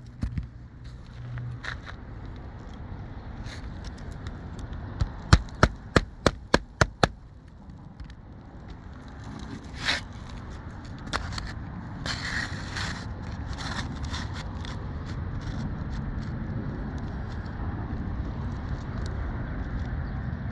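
Hammer driving roofing nails into an asphalt shingle: a quick run of about six sharp blows around five to seven seconds in, with a few lighter knocks and scraping on the shingles elsewhere.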